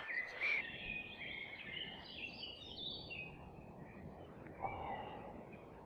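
Woodland birdsong: several small birds singing at once in many short, high chirping phrases over quiet ambient noise, with one brief low sound about four and a half seconds in.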